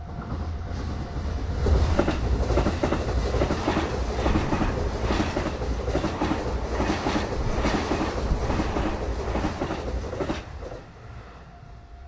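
Electric train passing over a level crossing: a loud, steady rumble with rhythmic wheel clatter over the rail joints, which drops off sharply about ten seconds in. The crossing's warning bell, a steady ringing tone, is heard again once the train has passed.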